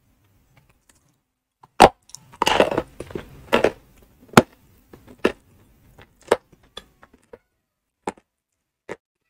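Edible chalk (ayilo) crunching as it is chewed: a sharp crunch about two seconds in, a quick run of crunches, then single crunches that come further apart toward the end.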